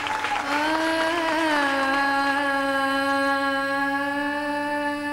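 A woman begins singing with one long held note that wavers slightly about a second in and then holds steady, opening a slow song. Applause dies away as the note starts.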